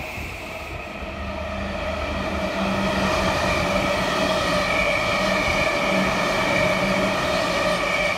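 Electric commuter trains running past close by, with wheel-on-rail rumble and a steady, multi-toned motor whine. The sound grows louder about two and a half seconds in.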